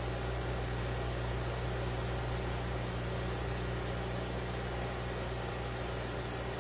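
Steady background hiss with a low electrical hum under it, unchanging throughout, with no distinct handling sounds: the noise floor of an old analogue videotape recording.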